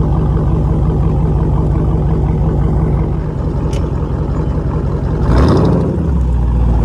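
392 HEMI 6.4-litre V8 exhaust running with a steady, deep note; a single sharp crack a little under four seconds in, then a brief rushing burst around five and a half seconds, after which the engine note changes.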